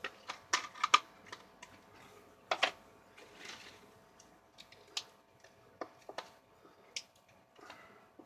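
Sharp, irregular clicks and snaps of a tight container lid being pried at and handled. The loudest come in the first second and again at about two and a half seconds, with fainter ones after.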